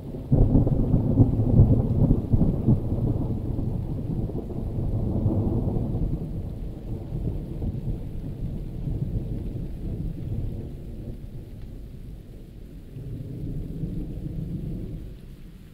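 A thunderclap breaks in suddenly and rolls into a long low rumble that swells again twice before fading near the end, over steady heavy rain.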